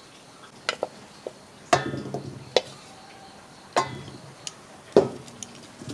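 Stainless steel pots knocking and clinking about half a dozen times, two of the strikes ringing briefly, as steamed amlas are tipped from one pot into another.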